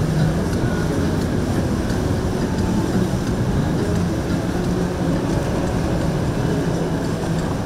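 Motorboat engines running steadily: a continuous low rumble with a steady low hum through it.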